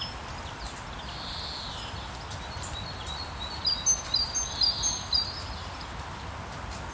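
Steady rain hiss with birds chirping over it; about halfway through, a quick run of short, high chirps stands out as the loudest sound.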